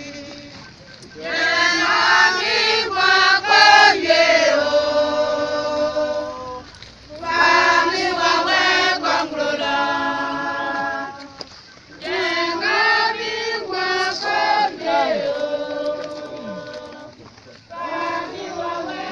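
A crowd of mourners singing together in long phrases, with short breaks between them.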